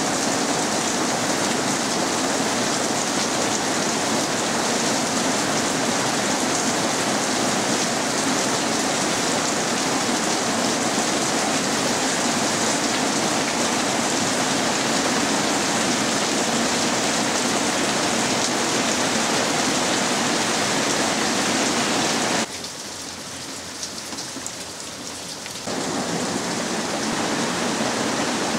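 Heavy rainy-season rain pouring steadily onto leaves and trees. About three-quarters of the way through it suddenly drops quieter for about three seconds, then comes back at full strength.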